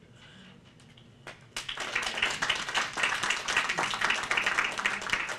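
Audience applause, many hands clapping at once. It breaks out about a second and a half in after a short lull.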